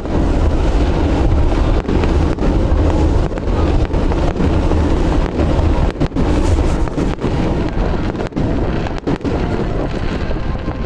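Fireworks bursting in a rapid, continuous barrage, heard as a loud, deep rumble with no gaps between the bangs.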